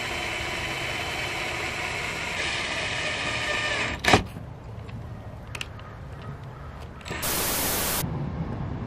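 Handheld cordless rotary tool running steadily with a whine against a car's trunk lid, stopping with a click about four seconds in. About seven seconds in there is a second-long burst of loud hiss.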